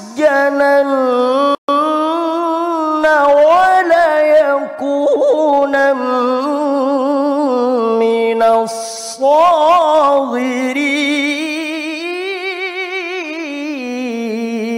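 A man's voice reciting the Quran in the mujawwad style: long, ornamented melodic phrases held and bent with a wide vibrato, with a quick breath drawn in about nine seconds in.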